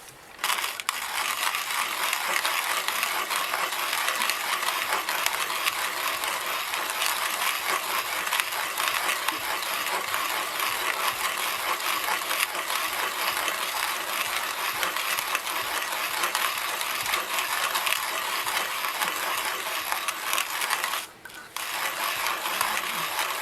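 Zassenhaus Brasilia hand-cranked coffee grinder grinding coffee beans: a steady, dense crackling as the crank turns. The grinding breaks off briefly about three-quarters of the way through and then resumes.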